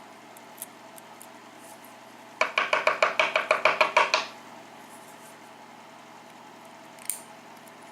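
A fast run of ringing metal taps, about eight a second for roughly two seconds, as the lock housing is tapped to work the last pin out of its chamber. A couple of faint clicks come before and after.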